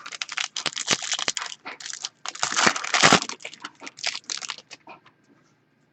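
Wrapper of a football trading-card pack being torn open and crinkled, a busy irregular crackling that dies away near the end.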